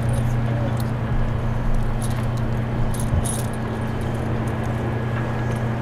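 Light metallic clinking and jangling in scattered short clicks, over a steady low hum.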